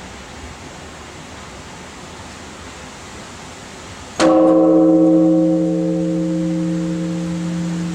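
A large bronze Japanese temple bell (bonshō) is struck once with its swinging wooden log, about four seconds in. It rings on with a deep hum and several steady overtones that slowly fade, the noon time bell.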